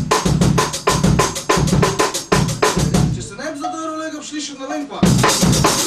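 Drum kit playing a fast, steady beat. Around the middle the drumming thins and a voice sounds briefly, then the full kit comes back loud with cymbals about five seconds in.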